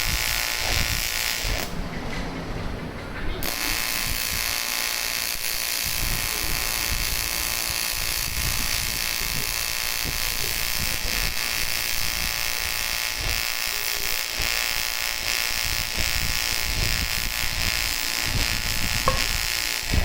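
AC TIG welding arc buzzing steadily while aluminium is built up on a shaft. The arc breaks off for under two seconds about two seconds in, then restarts and buzzes on.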